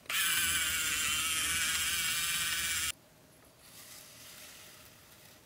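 Miniature brass crawler tractor model's motor and gear drive running with a steady whirr for about three seconds, then cutting off suddenly. A faint rustle follows.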